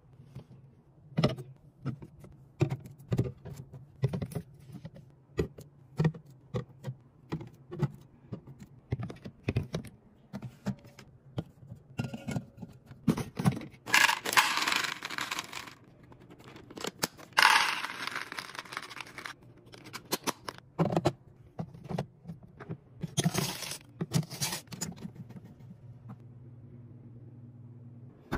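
Plastic containers, jars and food packaging being handled and set down in a fridge: a quick run of clicks and knocks, with two hissing rustles of about two seconds each around the middle.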